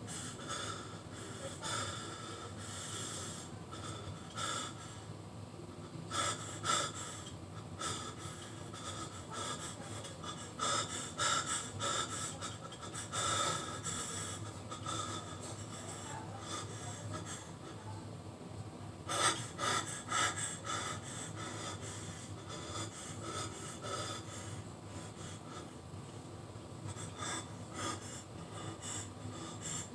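Someone breathing hard: irregular, noisy breaths that come in clusters, over a steady background hum.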